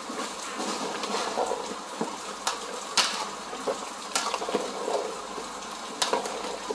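Thick jjajang (black-bean) sauce simmering in a large pot and being stirred with a ladle: a steady wet, bubbling sound, with several sharp clicks of the utensil against the pot.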